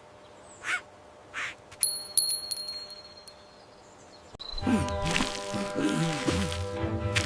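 Two short soft swishes, then a high ringing ding with a few clicks about two seconds in, and background music with a steady bass line starting a little past halfway.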